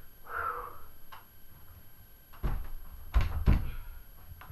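A few dull knocks and thumps, three heavier ones coming in the second half, with a brief faint squeak near the start.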